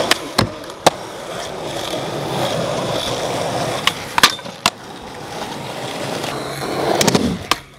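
Skateboard rolling on asphalt, a steady wheel rumble, after grinding along a ledge at the start. Sharp clacks of the board come several times, a few in the first seconds and a cluster near the end.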